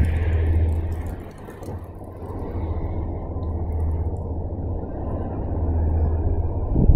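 Wind buffeting the microphone: a low, noisy rumble that swells near the start, eases briefly, then builds again toward the end.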